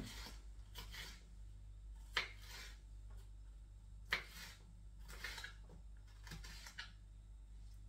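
Kitchen knife slicing sweet peppers on a cutting board: faint, irregular taps of the blade against the board, about a dozen over several seconds. The loudest come a little after two seconds and about four seconds in.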